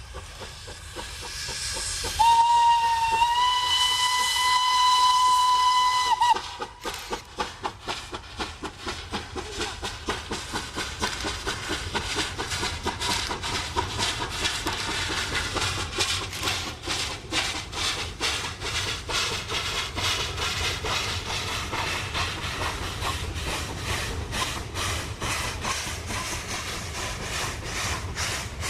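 Steam locomotive sounding its whistle once, a single steady tone lasting about four seconds, then working hard with rapid, regular exhaust chuffs over a steady steam hiss.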